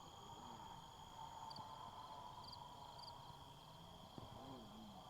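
Faint steady insect trilling, with a few short higher chirps about one and a half, two and a half and three seconds in.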